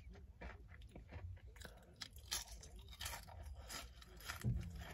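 Close-up mouth sounds of someone chewing a mouthful of cheeseburger: soft, irregular wet clicks and smacks. A brief low sound comes from the mouth about four and a half seconds in.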